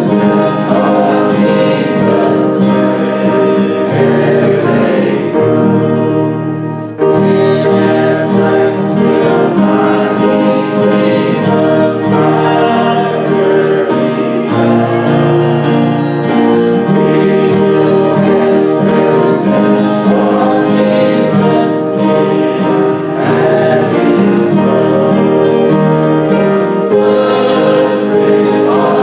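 A woman and a man singing a hymn together over steady instrumental accompaniment, with a brief pause about seven seconds in.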